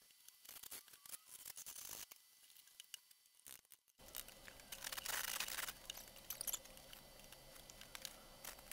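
Faint scraping and tearing as a hand tool strips the old canvas covering and nailed corner fittings from a wooden trunk, in short, irregular rasping strokes.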